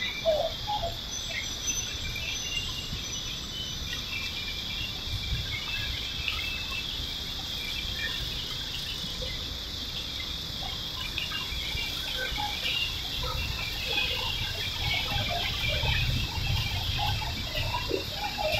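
Outdoor ambience: a steady, high insect drone over a low rumble, with faint scattered chirps. The rumble grows louder toward the end.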